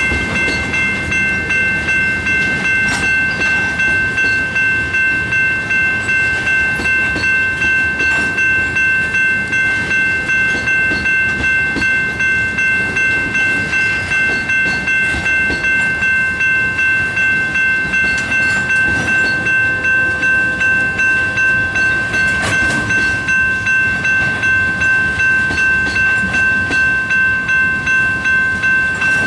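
Electronic railroad crossing bells, a General Signals Type 2 and a Safetran Type 1, ringing in a rapid, even pulse. Under them, the wheels of a slow freight train of tank cars clatter and rumble over the crossing.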